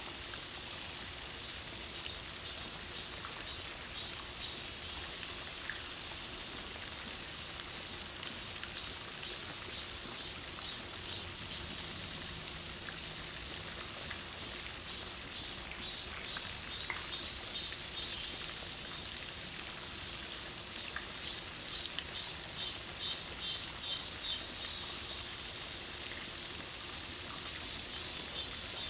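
Steady high-pitched chirring of summer insects with a fast pulsing rhythm, swelling a little about two-thirds of the way in. A few faint short peeps sound over it.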